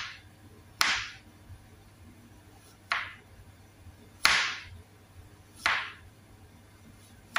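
Kitchen knife slicing a carrot into diagonal rounds on a plastic cutting board: five separate cuts, each sharp at first and fading quickly, one to two seconds apart.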